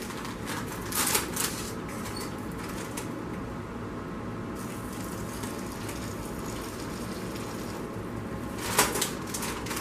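Hot water poured slowly from a pot into a foil-lined snack bag of crushed ramen noodles and cheese curls, a steady trickle. The bag crinkles briefly about a second in and again near the end.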